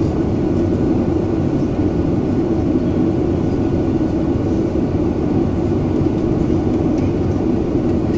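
Steady low hum and rush of a Boeing 737-900ER's cabin on the ground, heard from a window seat, with no change in pitch or loudness.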